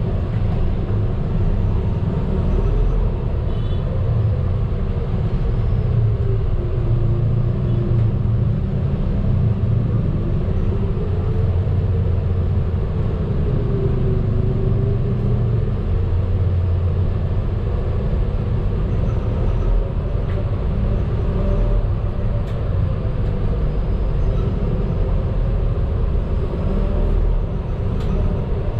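Medium bus on the move, heard from inside its cabin: a steady low engine and road rumble, with a whine that rises and falls in pitch several times as the bus speeds up and slows.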